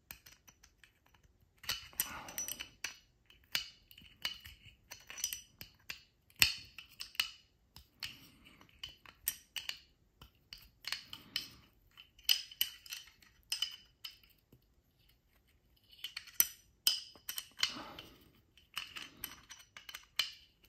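A Glock front sight tool clicking and scraping against a Walther PDP pistol slide as the front sight screw is worked loose. The metallic clicks and clinks come irregularly, with a short lull about two-thirds of the way through.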